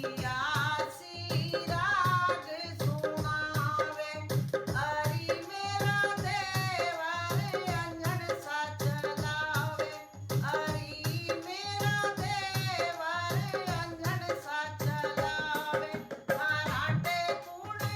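A woman singing a comic folk song over a steady hand-drum beat.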